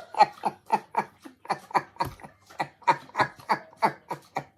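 A person laughing hard in a long run of short, rapid bursts, about four a second.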